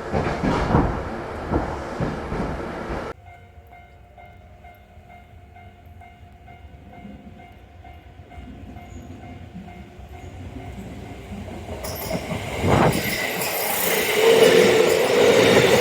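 Recorded real-train sound: a train running with a rhythmic clickety-clack over rail joints, then an abrupt cut about three seconds in to a much quieter steady electric hum with several fixed tones. The hum slowly grows, and near the end a loud rush of train running noise swells up.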